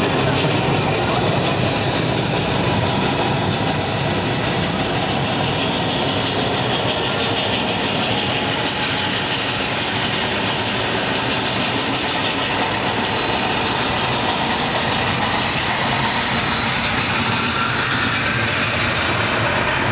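Recorded train sound played over loudspeakers for a sound installation in a large station hall, a steady, unbroken noise of a train running.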